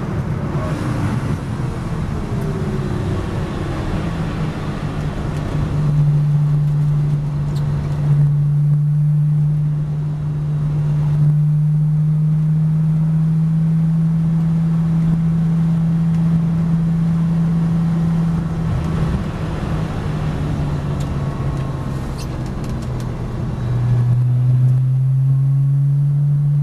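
Porsche Boxster S flat-six engine heard from inside the race car's cabin, its note falling as the car slows from high speed, then running at a steady, low engine speed while the car rolls along slowly. About 24 seconds in the note steps down to a lower pitch.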